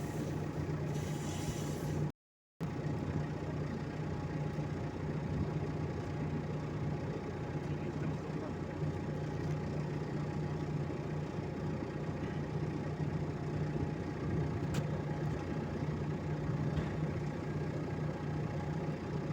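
Forklift engine idling steadily, with the sound cutting out for about half a second about two seconds in.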